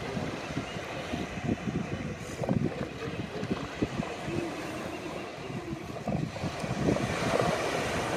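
Wind buffeting the microphone in irregular gusts, over a steady rumble of ocean surf.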